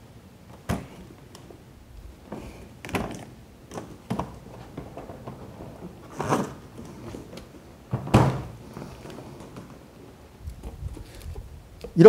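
Scattered knocks and thuds as a Bosch industrial vacuum and its plastic hose are wheeled into place and handled, a handful of separate knocks with the loudest about eight seconds in.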